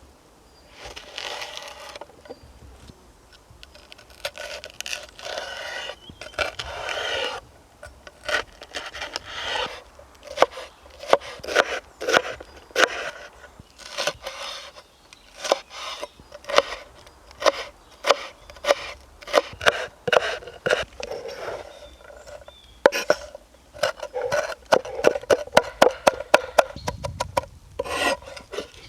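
Hand work on wood: long rubbing and scraping strokes, then from about a third of the way in a long run of sharp knocks, roughly two a second, in uneven bursts. This fits food preparation with a knife on a wooden board.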